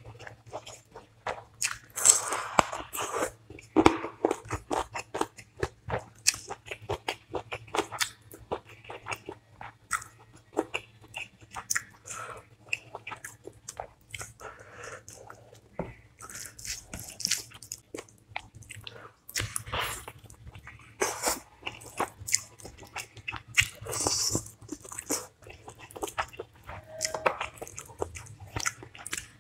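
Close-miked eating: a person chewing and crunching through a meal of chicken curry with rice and raw sides, with irregular wet clicks and louder crunchy bites every few seconds.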